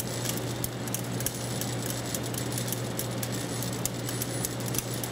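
Vibratory feeder of an optical grain sorter running with a steady low hum while red wheat kernels trickle through it, making light, irregular ticking and rattling.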